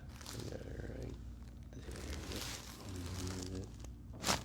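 A person's low groaning during a chiropractic adjustment, then a single sharp crack near the end as the adjustment thrust is delivered.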